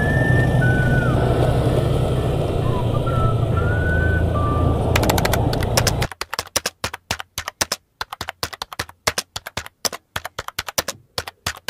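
Motorcycle engine and road noise from riding in traffic. About halfway through it cuts off suddenly and gives way to a fast, irregular run of keyboard typing clicks, a typing sound effect as on-screen text appears.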